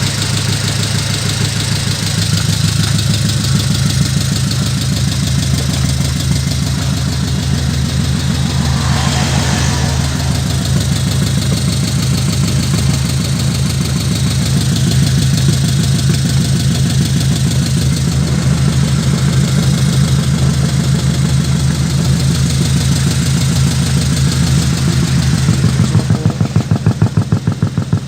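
Truck engine running steadily at a low idle-like pace with a fast, even pulsing beat. Near the end the beat becomes more pronounced, in distinct regular pulses.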